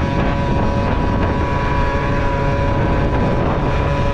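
Honda Topic 50cc two-stroke moped engine running steadily under way, its steady whine over wind noise on the microphone.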